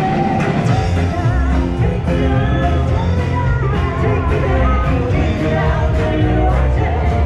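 Live rock band playing with a singer: a steady drumbeat, heavy bass and a wavering singing voice.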